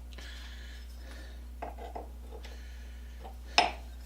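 Metal parts of an old hand-crank bench grinder being handled: a few soft knocks, then one sharp metallic clink about three and a half seconds in, over a steady low hum.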